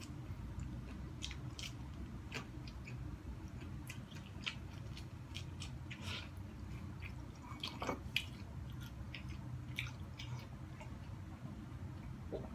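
A person biting and chewing kernels off an ear of corn on the cob: soft, irregular small clicks and crunches of chewing, over a faint steady low hum.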